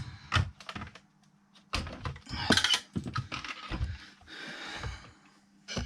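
Bench handling clatter: a string of sharp clicks and knocks with rustling between them, the loudest knock about halfway through, as leads and the radio unit are handled.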